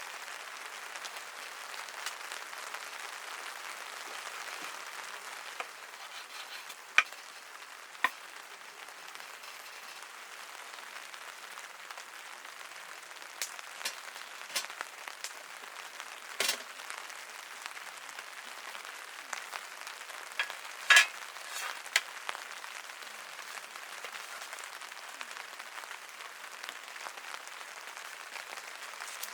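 Steady rain pattering on tent fabric, with a few sharp clicks and knocks of gear being handled, the loudest about 7, 8, 16 and 21 seconds in.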